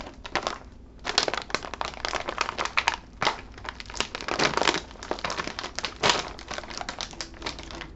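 Plastic snack bag crinkling and crackling as hands grip its sealed top and pull at it to open it, the crackle starting in earnest about a second in and going on irregularly.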